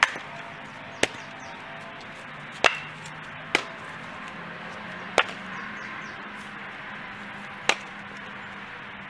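Fiskars X27 splitting axe striking and splitting firewood rounds set on the ground: six sharp cracks, spaced irregularly about one to two and a half seconds apart.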